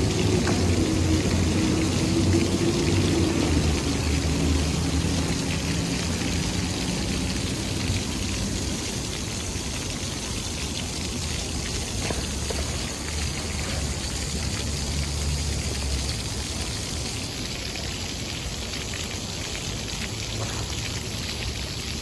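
Ground-level fountain jets splashing into a shallow pool: a steady hiss of falling water. Under it a low traffic hum, louder in the first few seconds.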